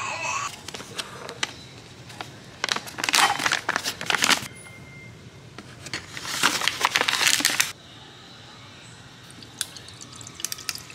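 Kitchen counter handling noises: a dense rattling, crinkling burst about three seconds in, then a second burst of ice going into a glass mason jar for about a second and a half, with a few scattered clicks near the end.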